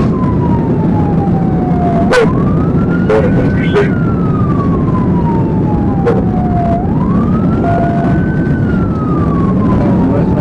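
Police car siren on a slow wail, its pitch climbing quickly and then falling slowly, about twice, over the loud drone of the patrol car's engine and tyres at speed. A few sharp clicks come about two and four seconds in.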